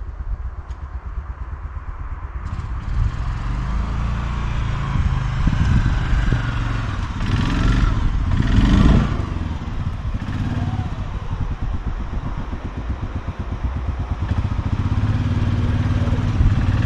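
Four-wheeler (ATV) engine running as it drives onto a wooden deck, with a louder burst about eight seconds in as it climbs the ramp onto the deck.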